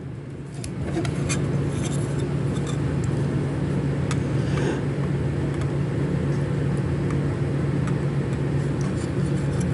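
A steady low mechanical hum with an even rushing noise, which steps up in level less than a second in and then holds; a few faint clicks sound over it.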